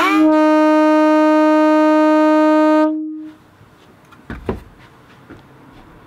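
Early-1970s FIAMM air horn blowing one loud, steady note for just under three seconds, its pitch sliding up briefly as it starts, then cutting off; the horn is working again, powered by its replacement compressor on an 18-volt battery.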